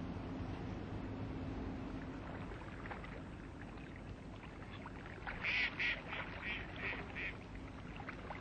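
Ducks quacking: a quick run of about six short calls in the second half, over a steady low hum and background noise.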